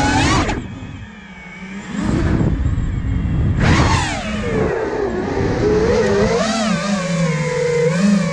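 Motors and propellers of an iFlight Nazgul Evoque 5-inch FPV freestyle quadcopter whining as it flies, the pitch rising and falling with the throttle. Soon after the start the throttle drops and the whine sinks to a quieter hum for about a second and a half. It then comes back, with a sharp rising sweep as the throttle is punched.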